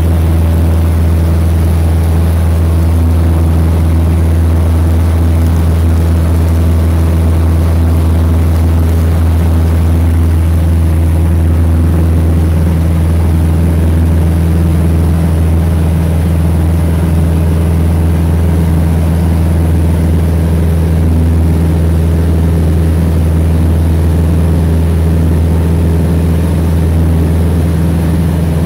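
Single-engine light aircraft's engine and propeller running steadily in level flight, a constant low drone heard from inside the cabin.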